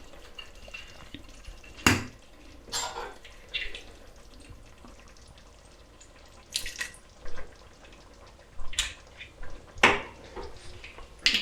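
Kitchen utensils clinking against cookware: a few sharp clinks, the loudest about two seconds in and again near the end, with short scraping and liquid sounds between them.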